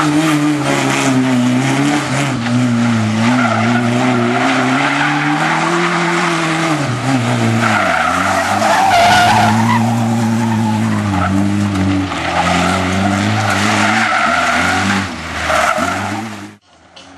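Opel Corsa competition car driven hard, its engine note climbing and dropping as it is revved and shifted, over loud tyre and road noise with some skidding. The sound cuts off abruptly near the end.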